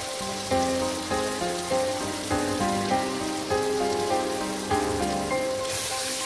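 Instrumental background music, a melody of short notes, over the steady sizzle and bubbling of a chicken curry simmering in a pan; the sizzle gets louder near the end.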